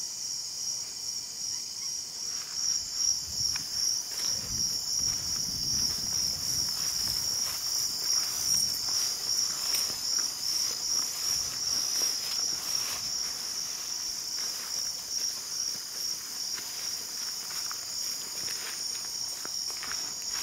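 Dense night insect chorus, a steady high trill pulsing a few times a second, typical of crickets in tropical jungle. Irregular soft scuffs and knocks through the first half, likely from people moving about.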